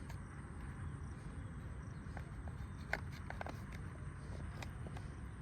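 Faint, irregular clicks and taps of a plastic roof cover being handled and pressed onto a toy auto rickshaw, over a low steady background rumble. The sharpest tap comes about three seconds in.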